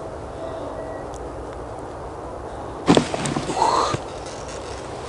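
Steady outdoor background hiss. About three seconds in there is a loud, second-long burst of rustling from the angler's winter suit, with a sharp knock at its start, as he swings the ice-fishing rod out to the side, striking at a bite.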